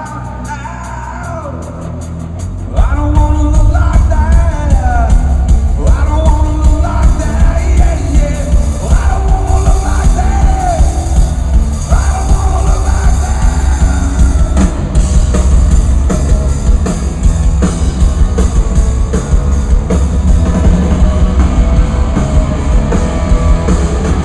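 Rock band playing live: a singer's voice at first, then about three seconds in the full band comes in loud with drums and heavy bass under the vocals.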